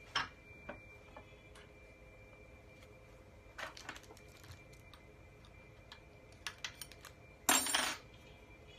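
Metal hand tools clinking and knocking against metal on a workbench. A sharp knock comes right at the start, then scattered light clinks, and a louder half-second metallic rattle near the end.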